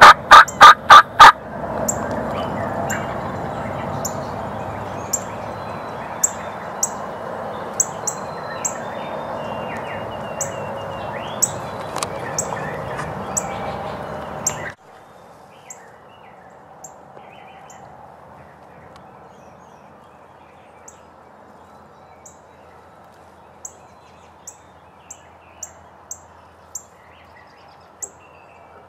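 Wild turkey gobbler gobbling once at the start, a loud rapid rattle of about five pulses, with short high songbird chirps scattered throughout. A steady background hiss drops away abruptly about halfway through.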